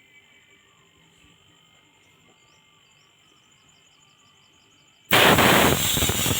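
Faint quiet, then about five seconds in a sudden loud, steady hiss of pressurised gas starts and keeps going.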